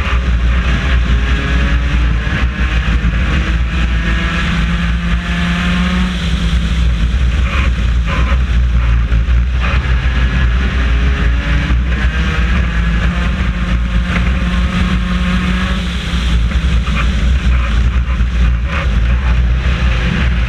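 Four-cylinder race car engine heard from inside the cockpit during a race, running loud and continuously. Its pitch rises and falls repeatedly as the driver accelerates and lifts, and there are a few sharp knocks and rattles from the car.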